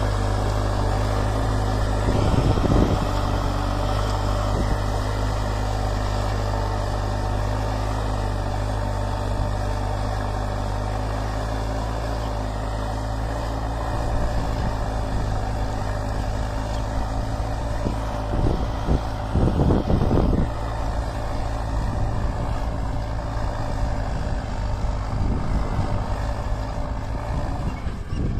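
New Holland 7610S tractor's diesel engine running steadily under load while it pulls a disc plough through dry soil. A few brief thumps stand out about two seconds in and again around eighteen to twenty seconds.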